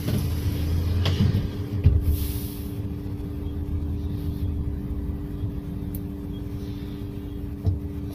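Cabin sound inside a King Long electric low-floor midibus standing still: a steady hum with low rumble and a few knocks and rattles. A short hiss of air comes about two seconds in.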